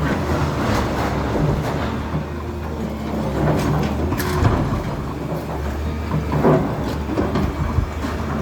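Demolition work: a heavy engine running steadily under irregular clattering and knocking of debris.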